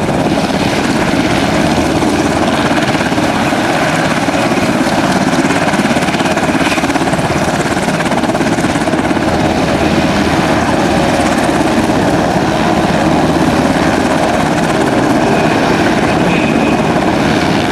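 UH-60 Black Hawk helicopter running on the ground with its rotors turning, a loud steady drone of rotor and twin turboshaft engines.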